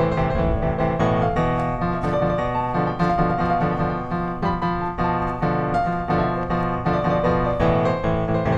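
Background piano music: a steady run of notes played in an even rhythm.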